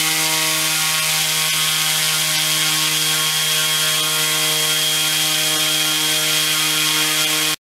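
Small brushless electric motor spinning a two-blade propeller on a test stand, running at a steady speed. It makes a steady buzzing hum with a thin high whine above it, and the sound cuts off suddenly near the end.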